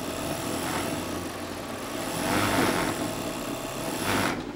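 Juki MO-3616 industrial overlock (serger) sewing machine running steadily while stitching fabric, stopping shortly before the end.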